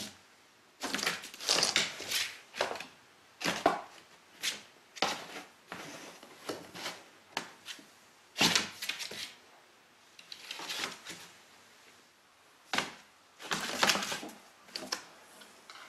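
Cat scrambling about inside a cardboard box, its paws, claws and body scraping and scuffing against the cardboard in irregular bursts, some about a second long.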